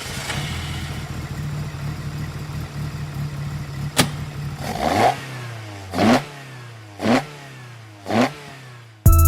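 Car engine idling steadily, then revved in four short blips about a second apart, with a sharp click just before the first. Music cuts back in near the end.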